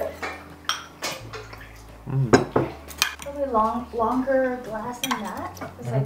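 Cutlery and dishes clinking at a dinner table: irregular taps and scrapes of utensils on plates, with a brief voice-like hum in the middle.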